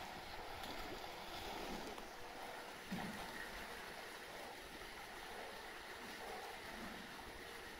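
Water in a polar bear's pool sloshing and running, a steady wash of noise, with one soft low thump about three seconds in.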